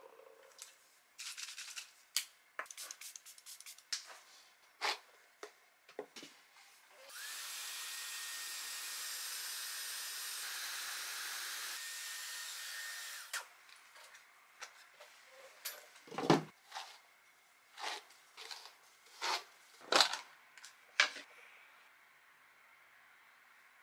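A hand-held hair dryer runs steadily for about six seconds, a hiss with a faint high whine, starting about a third of the way in and cutting off suddenly. Before and after it come scattered sharp clicks and knocks of small objects being handled, the loudest of them in the second half.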